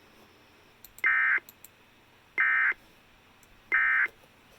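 Emergency Alert System end-of-message code: three short bursts of SAME digital data tones, a harsh buzzing screech, each about a third of a second long and about a second apart, marking the end of the alert.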